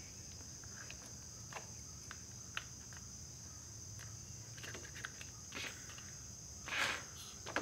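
Short hiss of a WD-40 aerosol can sprayed through its straw under a rubber motorcycle handlebar grip to loosen it, near the end, with a few small clicks and taps of tools on the grip. A steady high-pitched drone sits underneath.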